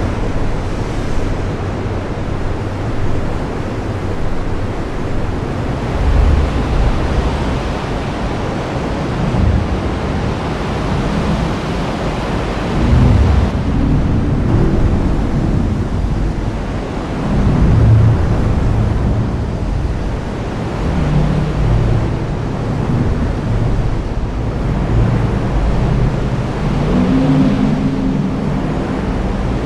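Heavy rain falling steadily, with several low rumbles of thunder swelling and fading.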